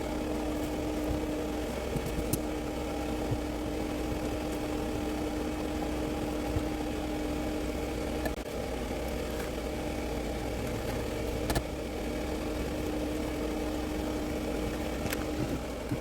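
Steady machine hum, like a fan or small motor running, with a few light clicks over it. A steady tone in the hum breaks off briefly midway and stops shortly before the end.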